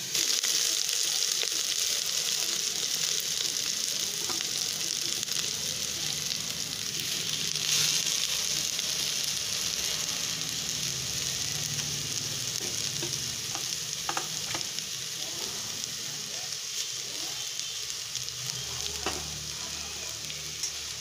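Chopped colocasia (taro) leaves dropped into hot oil with frying onions in an aluminium pressure cooker: a sizzle that starts sharply as they go in, then a steady frying hiss that slowly dies down, with a few faint clicks later on.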